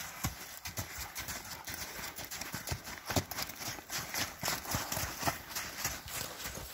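Hoofbeats of a saddled horse cantering on soft, muddy dirt: a steady rhythm of dull thuds, a few each second.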